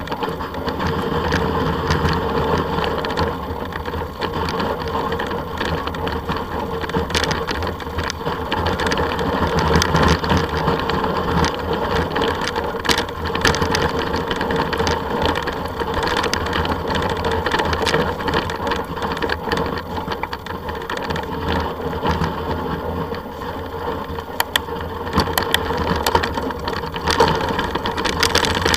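Steady rumbling ride noise from a camera mounted on a bike or vehicle travelling along a snowy trail, with a constant hum and scattered rattles and clicks.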